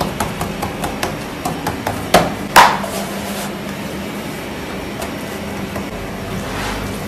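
Fingertips pressing and dimpling pide dough against a floured wooden counter: a quick run of light knocks, with one louder slap a little over two seconds in. After that the knocking stops and only a steady low hum is left.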